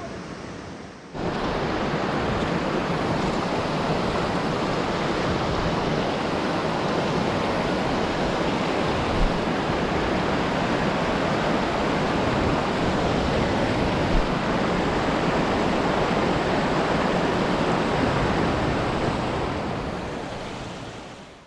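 Steady rush of water in a mountain stream, starting abruptly about a second in and fading out at the end, with two brief low thumps in the middle.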